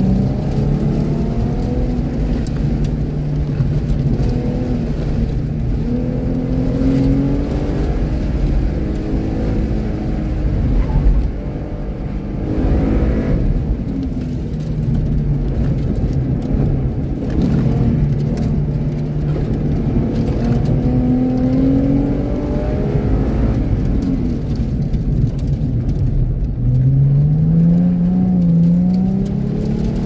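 A 2013 Ford Mustang's 3.7-litre V6 heard from inside the cabin, running hard in second gear between about 3,500 and 4,600 rpm. Its pitch rises and falls again and again as the car accelerates and slows through an autocross course.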